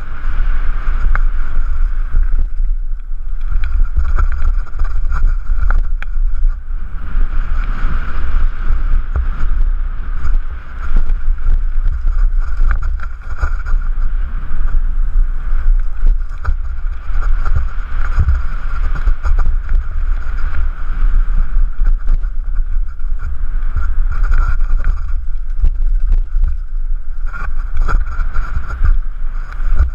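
Wind buffeting the microphone of a helmet-mounted camera on a mountain bike descending a rough dirt trail, with constant rattling and knocks from the bike over the ground.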